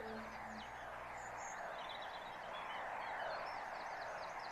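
Birds chirping and twittering over a steady background hiss.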